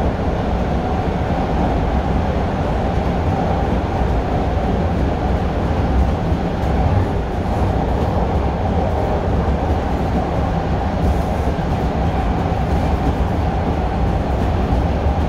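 Bombardier T1 subway train running steadily along the track, heard from on board: an even, unchanging rumble of wheels on rail and running gear, heaviest in the low end.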